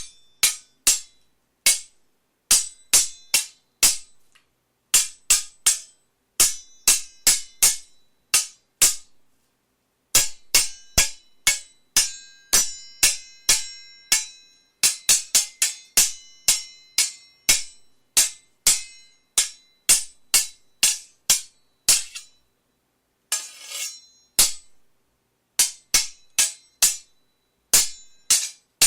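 Sword duel: metal blades clashing again and again in quick runs of strikes, each hit ringing briefly, with short pauses between exchanges. A short grinding scrape comes late on.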